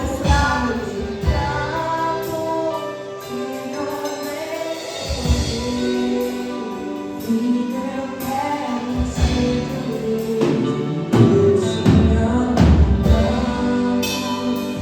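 Live gospel worship music: group singing over a band with drums.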